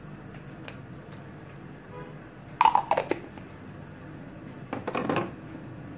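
Kitchen handling noise: two short bursts of knocking and clatter, a couple of seconds apart, as a spoon and a plastic seasoning jar are handled beside a steel bowl, over a low steady hum.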